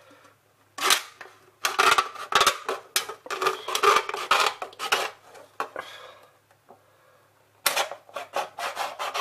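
Multi-tool blade piercing and slicing through the thin aluminium wall of a drink can, in runs of short scraping strokes: one brief burst about a second in, a long run through the middle, a pause of about two seconds, then more cutting near the end.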